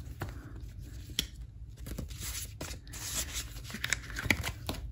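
Paper banknotes and cash envelopes handled by hand: bills rustling and sliding as they are put away, with scattered soft taps.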